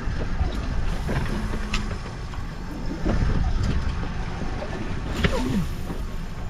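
Steady low rumble of wind and water on a small boat at sea, with a few light clicks and knocks.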